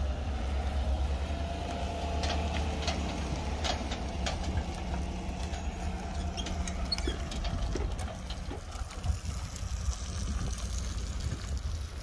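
Pickup truck towing a travel trailer driving slowly away, its engine running low under scattered clicks and rattles, the sound dropping off after about eight seconds. Wind buffets the microphone.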